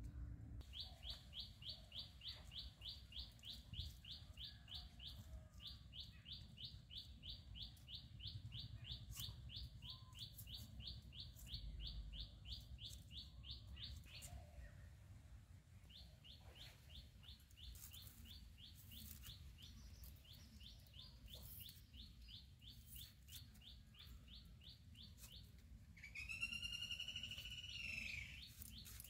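Faint, rapid high chirps from a bird, repeated about four to five times a second in long runs with short breaks, and a louder, arching call repeated a few times near the end.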